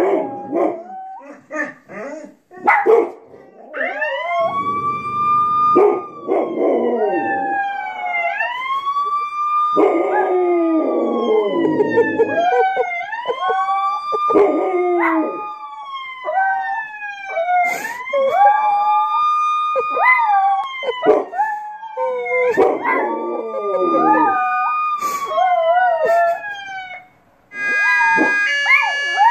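A police-style wailing siren played on a TV, climbing, holding and sliding down every few seconds, with a Rottweiler and a Chihuahua howling along to it and a few sharp barks at the start. Near the end the siren stops and a different steady electronic tone begins.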